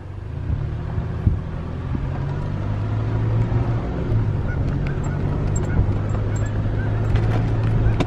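A vehicle driving, its engine and road noise giving a steady low hum heard from inside the cab, growing louder about a second in as it picks up speed.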